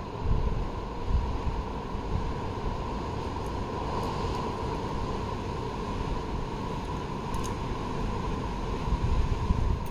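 Wind buffeting the phone's microphone in irregular low rumbling gusts, strongest just after the start and near the end, over a steady hum.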